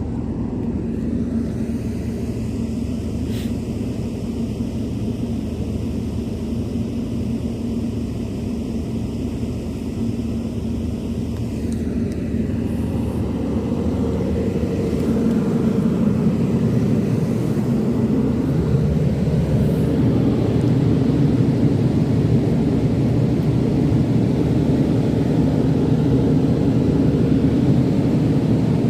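A steady low engine rumble that grows louder about halfway through.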